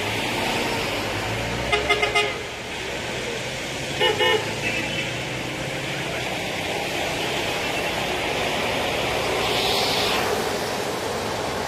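Car horns in a traffic jam: a few quick toots about two seconds in, and another short pair about four seconds in, over a steady hiss of traffic.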